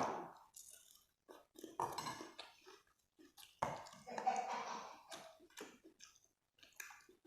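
Close-up eating sounds: short, irregular mouth noises of chewing and slurping, with a loud one right at the start that fades over about half a second.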